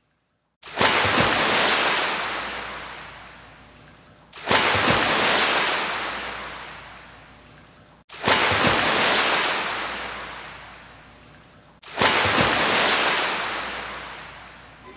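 Ocean waves breaking on a shore, four in a row about every four seconds, each hitting suddenly and then washing out and fading.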